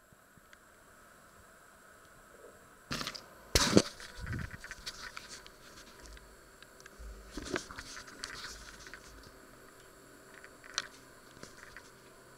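Plastic food wrapping crackling and tearing as it is pulled off, loudest in a sharp burst a few seconds in, followed by scattered rustles, scrapes and light clicks of food being handled.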